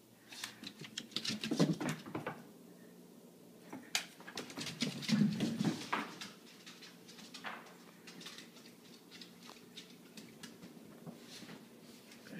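Corgi's claws clicking and pattering on a hardwood floor as it runs about, in quick clusters, busiest about a second in and again around the middle.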